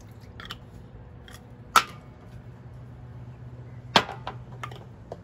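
Handling clicks and taps from a cooking spray can and its plastic cap: the can is set down on a glass tabletop and the cap is put back on. There are two sharp clicks, one under two seconds in and one about four seconds in, with lighter taps around them.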